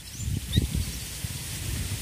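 Low, uneven rumbling noise with two faint short bird chirps about half a second in.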